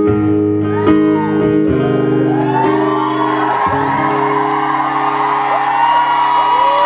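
Acoustic guitar strummed and its closing chords left ringing, the chord changing a little over halfway through. Audience whoops and cheers rise over it from about a third of the way in.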